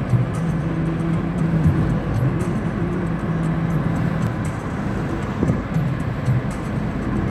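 Steady rumble of a moving vehicle heard from inside it, with a low pitched hum and scattered light rattles.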